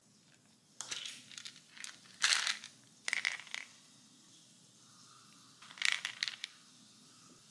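Plastic vitamin bottles picked up and handled, with short bursts of clicking and rattle as the tablets shake inside: four clusters, the loudest about two seconds in.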